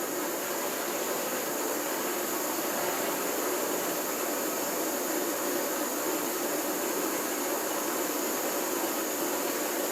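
Small propane torch burning with a steady hiss while it heats a modelling knife blade.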